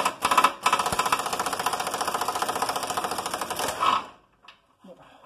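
Power impact wrench with a universal-joint socket hammering rapidly as it undoes an 18 mm bolt on a car's front subframe bracket, with two short pauses near the start. It stops about four seconds in, followed by a few light metallic clinks.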